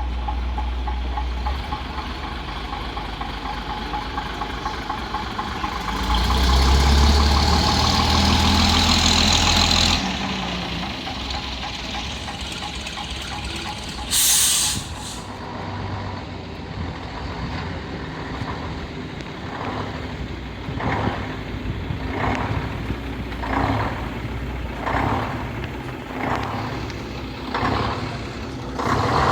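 A vintage bus's diesel engine running, growing louder for a few seconds as it works harder, with a short sharp hiss of air brakes about halfway through. Near the end comes a regular series of short pulses, about one a second.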